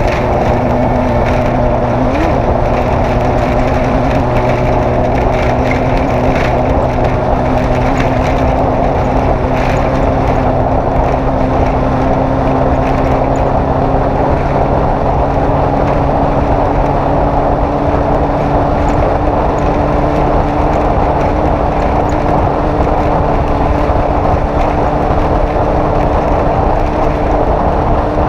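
Off-road race vehicle's engine running steadily at speed, its pitch rising slowly, inside a constant rush of noise.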